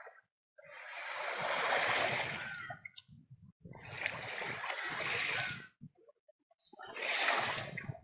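Small sea waves washing up onto a sandy shore: three swells of splashing rush, each about two seconds long, with quiet gaps between.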